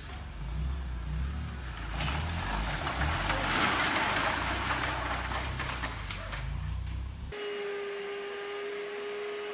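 Stacked pallets of plastic soda bottles collapsing: crates and bottles crash down amid a loud rush of hissing, spraying soda, heaviest from about two seconds in. Near the end it cuts suddenly to an upright carpet cleaner's motor running with a steady whine.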